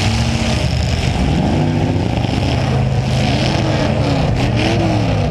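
Demolition derby car's V8 engine, from the 1990 Chevy Caprice Estate Wagon, running steadily and revved up and down, with several quick revs in a row in the second half.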